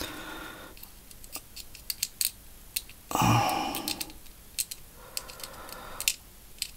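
Small, irregular clicks and taps of a thin metal needle against the tiny metal contacts and plastic housing of a rocker switch as the contacts are worked back into place. A brief murmur of breath or voice about three seconds in.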